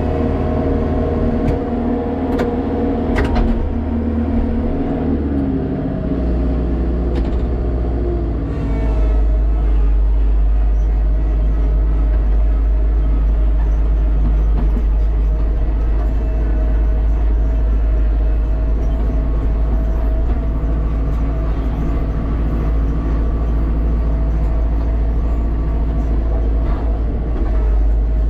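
Kubota tractor's diesel engine running steadily, heard from inside the cab. There are a few sharp clicks in the first few seconds. The engine's low note changes about six to nine seconds in, and the drone is a little louder and steady after that.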